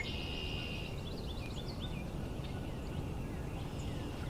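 Mixed spring birdsong from several birds over a steady low background rumble: a short trill near the start, then a quick series of short sliding chips, with scattered fainter calls.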